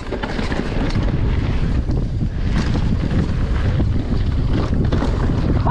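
Wind rushing over the microphone of a camera on a downhill mountain bike at speed, with the tyres and bike clattering over a rough, rocky gravel track.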